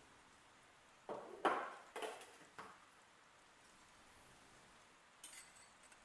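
Stainless-steel kitchenware clattering: a quick run of four or five knocks and clinks about a second in, then a single light metallic clink with a short high ring near the end, like steel parts of a phin coffee filter being handled.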